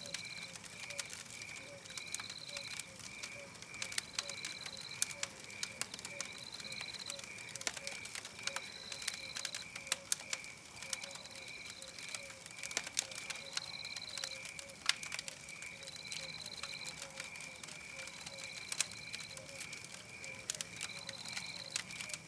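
Campfire crackling with irregular sharp pops over a steady, evenly repeating night chorus: one note pulsing about twice a second, and a higher trill lasting under a second that comes back every two seconds or so.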